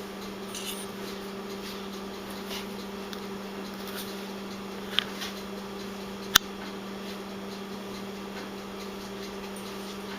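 Steady low hum of a small motor, with two sharp clicks about a second and a half apart midway, the second louder.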